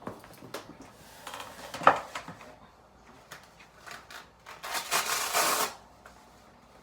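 Furniture being moved and handled: a sharp knock about two seconds in, then a scraping rustle lasting about a second.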